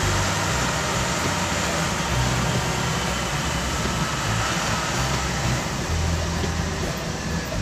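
Heavy rain falling on a car's roof and windshield, heard from inside the cabin as a steady hiss, over the low drone of the car's engine and tyres on the wet road.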